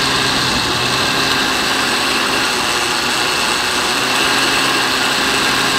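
Countertop blender motor running steadily, chopping coconut flesh and liquid into coconut milk. A loud, even whir with a faint steady hum that starts sharply.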